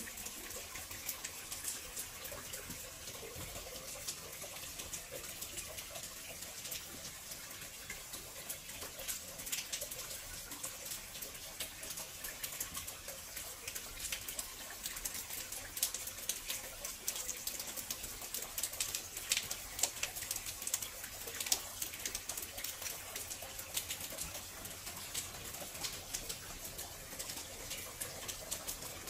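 Steady light rain, with scattered drips ticking irregularly on hard surfaces.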